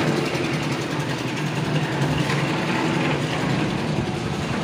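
A heavy engine idling steadily with a low, even hum.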